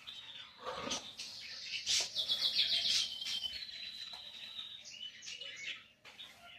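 Songbirds chirping and singing, with a rapid trill of repeated notes about two seconds in followed by a long, high, steady whistled note.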